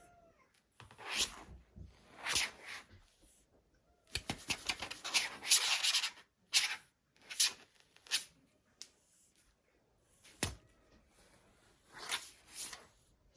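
Intermittent rubbing and rustling noises in short bursts, with a longer stretch of rustling in the middle, and one sharp knock about ten and a half seconds in.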